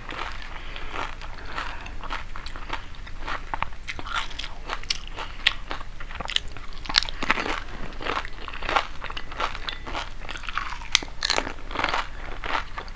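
Crisp panipuri shells crunching and being chewed, one whole puri after another, with many sharp crunches in quick, irregular succession.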